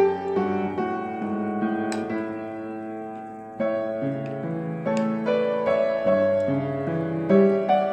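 Background piano music, one note after another, each fading as the next begins.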